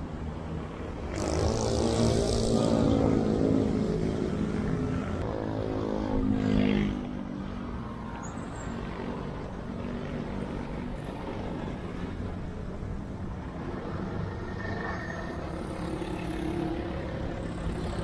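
Road traffic: a motor vehicle's engine passes close by, loudest over the first several seconds, then steady traffic noise continues.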